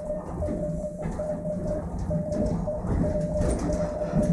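Morse code (CW) sidetone from an Elecraft KX3 transceiver, a single steady beep keyed on and off in dots and dashes as the operator sends on the key. Under it runs the steady low rumble of the moving railway car.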